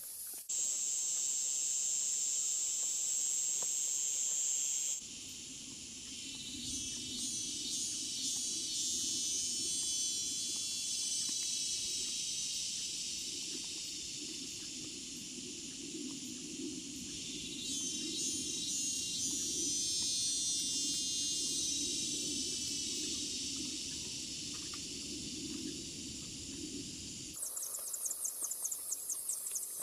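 Insects buzzing and trilling, the sound changing abruptly twice: a steady high buzz, then a long rippling high drone over a low rumble, and near the end a fast pulsing chirp.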